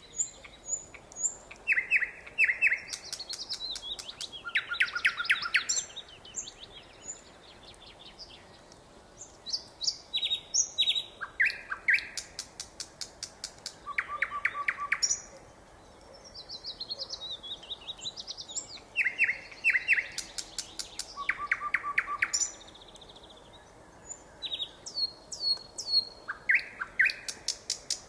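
Nightingale singing: phrases of rapid, evenly repeated notes and high whistles, each lasting a second or two, with brief pauses between phrases.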